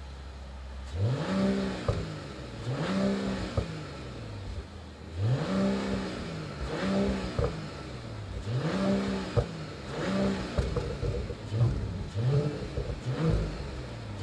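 Mercedes-AMG CLE 53's 3.0-litre inline-six heard from behind its quad tailpipes. It idles low for about a second, then is blipped about ten times in a row, the revs rising and falling each time.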